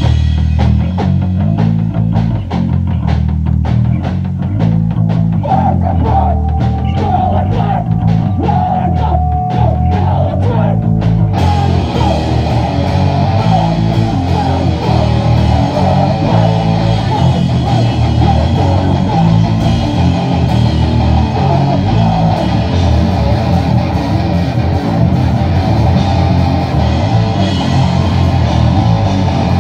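Live rock band playing loud: electric guitar and bass over a drum kit, with a vocalist shouting into a microphone. About eleven seconds in the full band comes in harder with cymbals.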